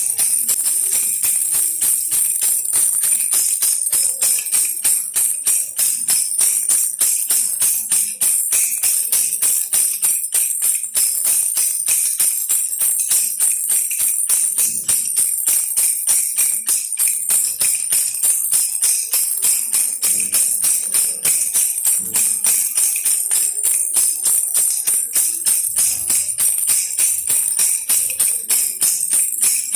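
Baby rattle toy being shaken quickly and steadily, a bright, continuous rattling jingle.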